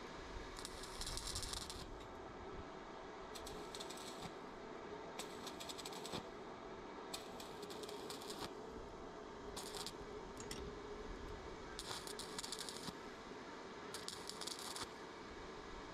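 Electric arc welding in short bursts: seven crackling, sizzling runs of about a second each, a second or two apart, as on short tack welds.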